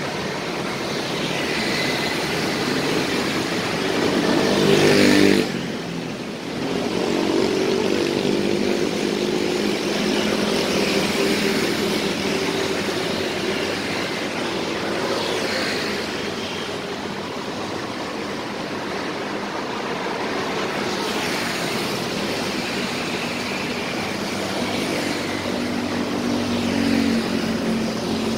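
Busy city street traffic: cars and small motorcycles drive past one after another over a steady rush of tyre and engine noise. Each pass swells and fades, and the loudest comes about five seconds in and cuts off sharply.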